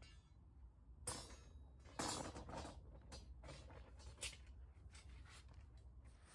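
Faint scraping strokes of a hand tool working building material, several irregular scrapes about half a second to a second apart.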